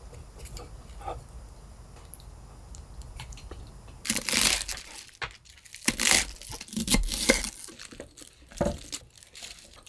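Leafy vegetables such as bok choy and napa cabbage leaves rustling and tearing as they are handled and laid on a wooden plate, in several loud crisp bursts from about four seconds in. Before that there are only a few faint clicks.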